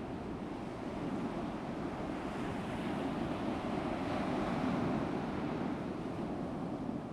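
Ocean surf: a steady wash of waves that swells to a peak about four to five seconds in and then eases off.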